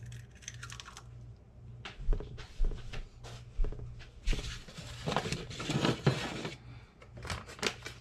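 Kitchen handling noises: a few soft knocks and clicks, then about two seconds of paper rustling and crinkling, with a low steady hum underneath.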